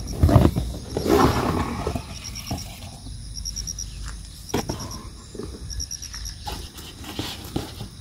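Wind buffeting the microphone with a steady low rumble, over rustling and scattered knocks as a corrugated plastic board and a light stick-framed rubber-powered ornithopter are handled. The rustling is densest in the first two seconds.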